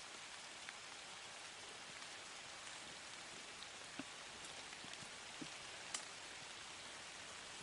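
Faint, steady hiss of light rain, with a few soft drip-like ticks.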